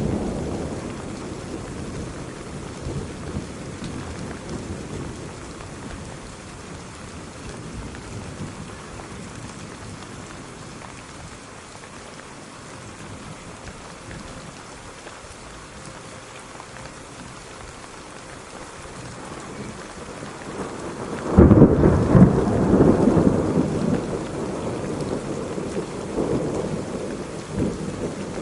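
Steady rain with thunder. A rumble dies away over the first few seconds, then a sudden loud thunderclap comes about three-quarters of the way through and rumbles on for several seconds.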